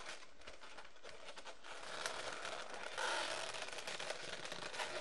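Latex 260 twisting balloons rubbing against each other as ear twists are shifted on a balloon sculpture, a rough crackly rubbing that gets louder about three seconds in.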